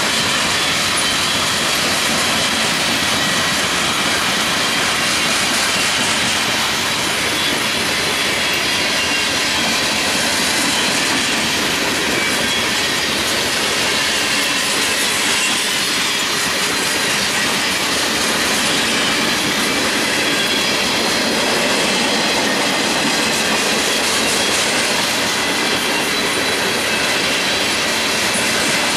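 Freight cars of a passing mixed train, covered hoppers, open hoppers and tank cars, rolling by close up: a steady loud rumble of steel wheels on the rails, with thin high squealing tones from the wheels.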